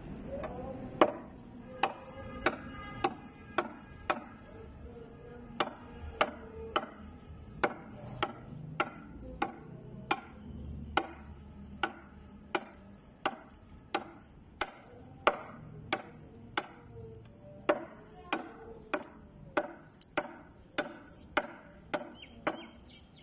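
A large knife blade chopping repeatedly into a bark-covered wooden log, splitting off wood chips. The sharp thwacks come at a steady pace of a little over one a second.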